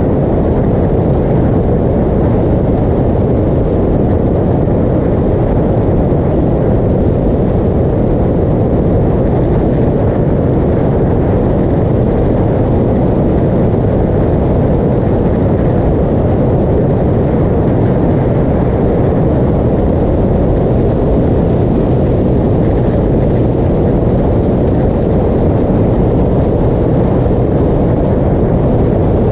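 Steady rush of wind and road noise from a motorcycle cruising at highway speed, loud and unbroken, with no distinct engine note standing out.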